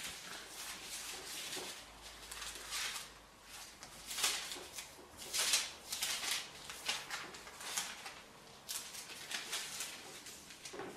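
Thin paper pages of a Bible being leafed through while looking up a verse: a run of soft, irregular swishes and rustles, loudest about four and five and a half seconds in.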